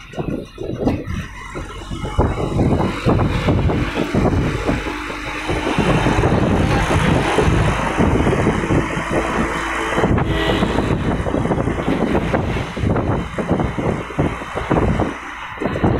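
Road traffic noise: cars running by on the road, a dense, uneven rumble with a steady hiss over it.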